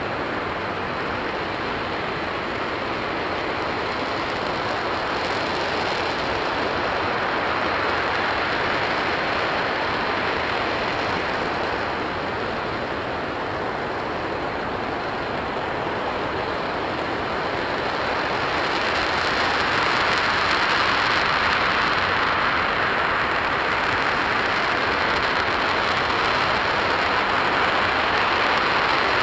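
RS-25 liquid-hydrogen/liquid-oxygen rocket engine firing steadily in a hot-fire test: a continuous rushing noise that grows a little louder and brighter about two thirds of the way through.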